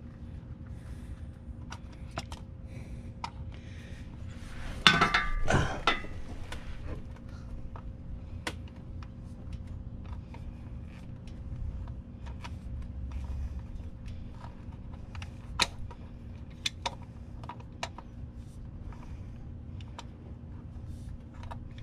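Blue-handled pliers gripping and turning a spin-on oil filter: scattered small metal clicks and scrapes as the jaws slip and bite on the filter can, with a louder burst about five seconds in.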